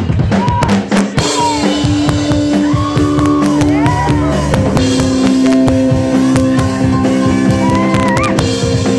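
Live piano-bar band playing: drum hits lead for about the first second, then grand pianos, drum kit and electric guitar come in together with held notes.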